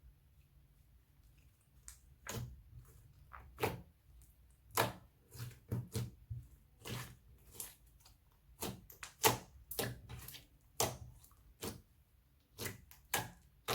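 Slime being worked by hand: a string of short sharp pops and clicks at irregular intervals, about one or two a second, starting about two seconds in.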